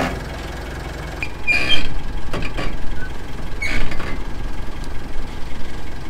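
Mitsubishi L200 pickup engine idling, then revving hard from about a second and a half in as the truck strains to pull the caravan out of the mud, with a couple of short squeaks. The truck is stuck and makes no headway.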